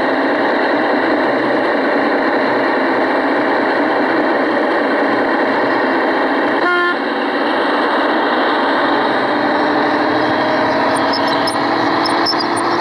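Garden-railway locomotive running with a steady drone, giving one short horn toot about seven seconds in; a rising whine comes in near the end.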